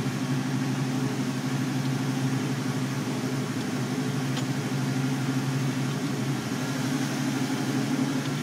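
Steady low mechanical hum that does not change, with a faint click about halfway through.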